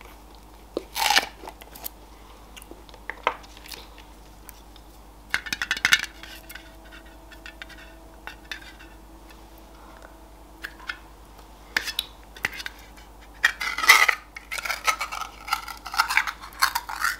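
A glass Nutella jar being opened and handled: the lid coming off and fingers working at the seal on the jar's mouth. It gives scattered clinks, taps and scrapes on the glass, busiest near the end.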